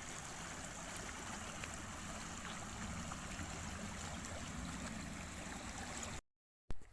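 River water flowing steadily, an even rushing that cuts off abruptly about six seconds in, followed by a couple of clicks.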